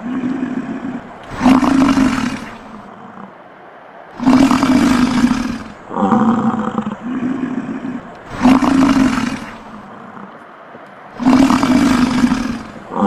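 A large animal roaring in repeated calls. There are about four loud, rough roars, each followed by a lower, more even tone.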